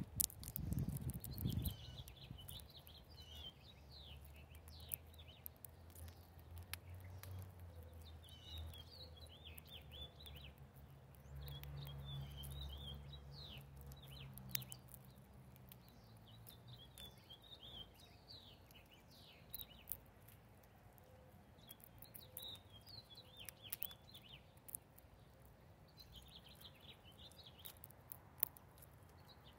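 Small birds chirping in short, high twittering clusters, with scattered sharp clicks and a low rumble through the first half.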